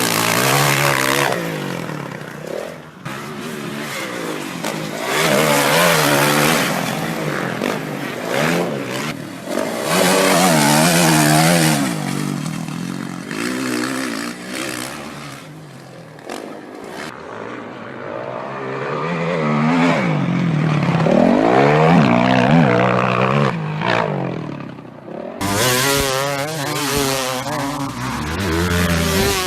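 Motocross dirt bike engines revving hard, the pitch rising and falling again and again, with abrupt changes from one burst to the next.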